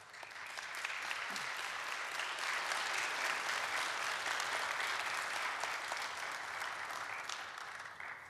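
Congregation applauding: many hands clapping together, starting suddenly, holding steady for several seconds and dying away near the end.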